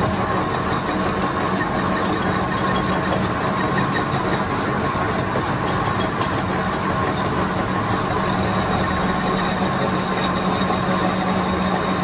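Metal lathe running steadily at spindle speed setting 135, its chuck turning the workpiece while the cutting tool takes a pass to reduce the diameter. A constant machine hum with a few held tones.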